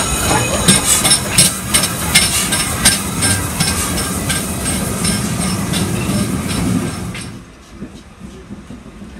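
Steam-hauled passenger train, LMS Black Five No. 5428 and its coaches, moving slowly past: a steady rumble with repeated sharp clicks and clanks from the wheels and couplings. About seven seconds in it quickly dies away to a faint rumble.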